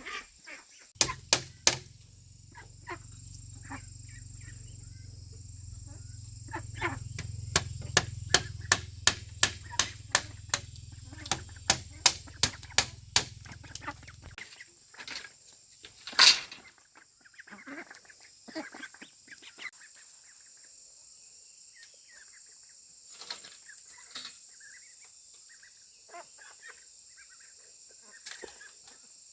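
Repeated sharp tool strikes on bamboo, about two a second, over a low steady hum that stops partway through, then one loud knock. Afterwards scattered light clicks and short calls of farm birds.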